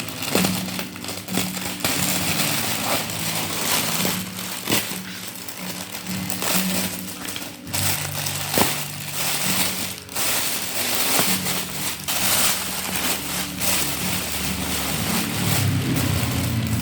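Plastic packaging crinkling and rustling in short, irregular bursts as a parcel is unwrapped and handled, over quiet background music.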